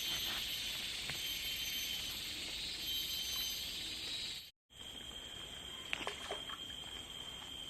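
Forest insects chirring steadily in high-pitched tones. The sound cuts out for an instant about four and a half seconds in, then resumes as one steady high insect tone with a few small clicks.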